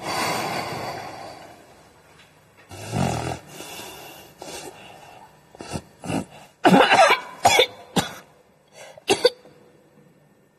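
A sleeping person snoring, then a run of sharp coughs and splutters in the second half.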